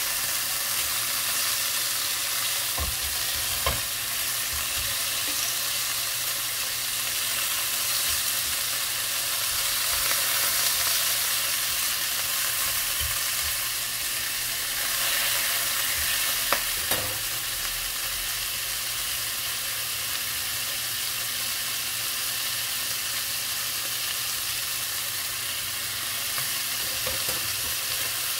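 Food frying in a pan, a steady sizzle, with a few sharp clicks about three seconds in and again around seventeen seconds.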